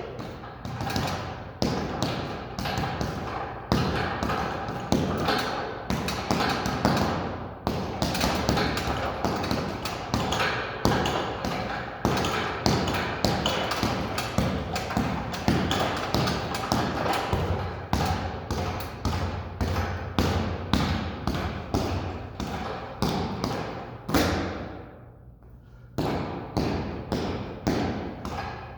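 Rapid, irregular knocking and thudding, several knocks a second, with a short break near the end.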